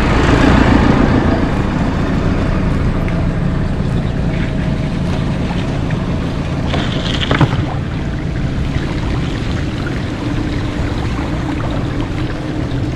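Bicycle tyres running through shallow floodwater on a lane, the water hissing and splashing, under a steady rush of wind on a bike-mounted action camera's microphone. A tractor is passed close by at the start, when the sound is loudest.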